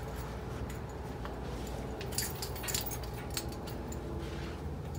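Steady indoor background hum with a few faint steady tones, and a brief scatter of light metallic clicks and jingles about two seconds in.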